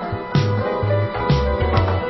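Background music: a steady beat with a strong bass line and sustained chords, the drum coming in just after the start.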